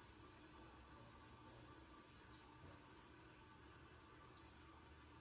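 Faint bird calls: four short, high chirps about a second apart.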